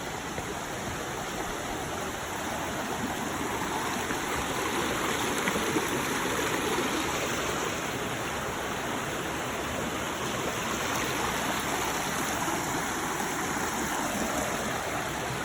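River water rushing steadily: an even, unbroken wash of flowing water.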